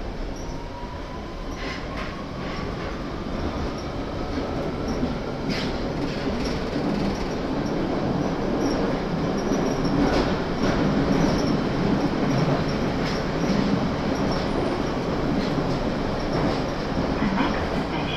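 Central line 1992 Tube Stock train pulling away and gathering speed. A whine from its chopper-controlled LT130 traction motors rises in pitch over the first few seconds and then fades under the growing wheel-on-rail running noise, with scattered clicks and clatter from the track.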